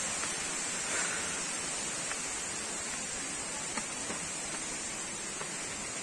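A steady, even rushing noise of the outdoors, with a few faint ticks.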